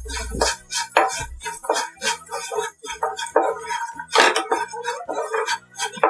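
Wooden spatula stirring dry beaten rice flakes in a nonstick frying pan, with irregular scrapes and knocks against the pan, over background music.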